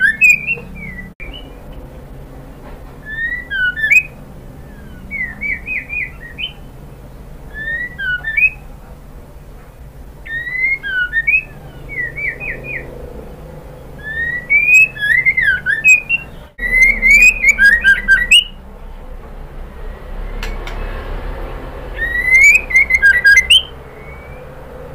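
Female white-rumped shama calling: short bursts of quick, sliding whistled notes mixed with sharp ticks, a few notes per burst, repeated every couple of seconds. It is a female's call to a male, used as a lure to set caged males singing.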